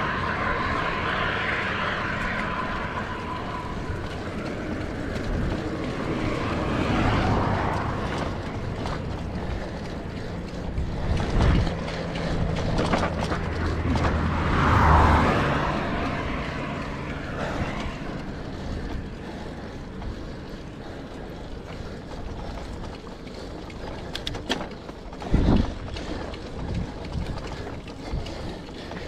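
Wind and road noise from a moving bicycle, with motor vehicles passing in several swells, the loudest about halfway through. A single knock near the end.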